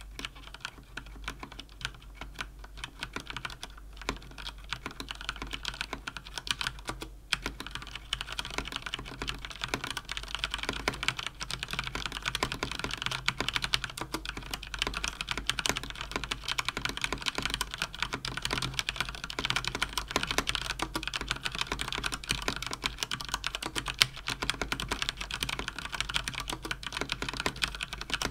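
Fast continuous typing on a mechanical keyboard with Cherry MX Speed linear switches (Cougar Attack X3 RGB): a dense stream of key clacks that gets busier and a little louder after the first several seconds. A steady low hum sits underneath.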